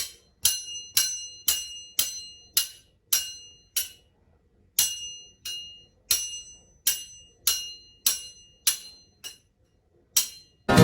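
A small bell-like object struck repeatedly, about twice a second, each strike giving a short clear high ring that dies away quickly. The strikes pause briefly twice, near the middle and shortly before the end.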